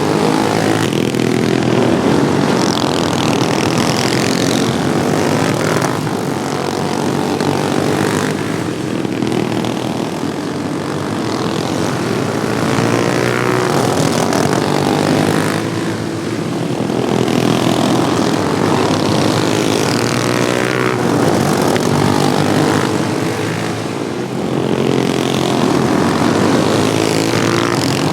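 A pack of modified Wheel Horse racing lawn tractors running at full throttle, their small engines in a loud, steady buzz whose pitch sweeps up and down again and again as machines pass by.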